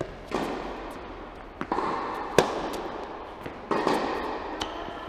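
Tennis ball being struck by rackets and bouncing on the court during a rally, sharp pops about once a second with a long echo after each from a large indoor hall; the loudest hit comes about halfway through.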